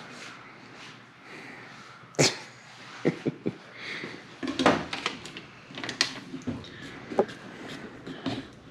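Scattered clicks, taps and knocks of tools and containers being handled while body filler is being mixed, over a steady faint hiss.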